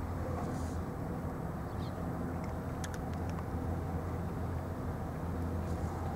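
A steady low engine drone, as of a motor idling, with a few faint ticks about three seconds in.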